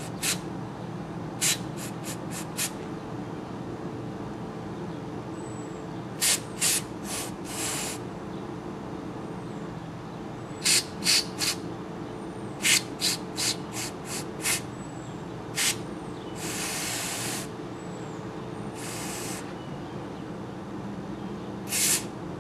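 Aerosol can of non-chlorinated brake cleaner sprayed in many short hissing bursts, with a few longer blasts of about a second, washing cosmoline out of a disassembled rifle bolt. A steady low hum runs underneath.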